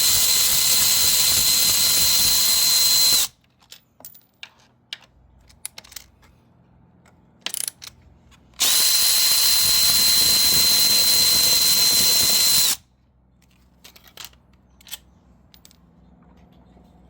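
Cordless power tool driving a 6mm allen socket, run twice to back out the front-wheel axle bolts. The runs last about three and a half and four seconds, each with a steady high whine that rises briefly as the motor spins up. Light clicks and taps of the socket and bolts come between and after the runs.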